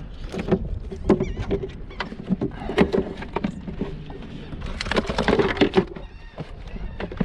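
Irregular knocks, thumps and rattles on a plastic kayak as a freshly landed sheepshead and fishing gear are handled, busiest about three and five seconds in.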